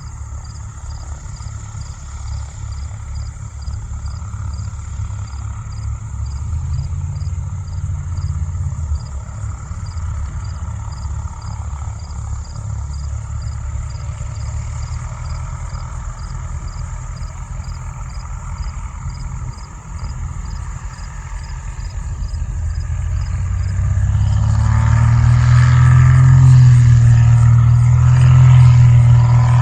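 Cirrus SR20 single-engine propeller plane: a steady low rumble, then about 24 seconds in the engine and propeller grow much louder as it passes close by, the pitch bending as it goes.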